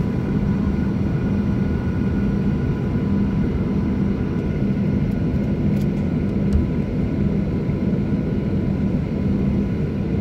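Boeing 737-800 engines (CFM56-7B turbofans) running at idle thrust while the airliner taxis, heard from inside the cabin over the wing. It is a steady, even noise with a constant low hum and fainter, higher whining tones.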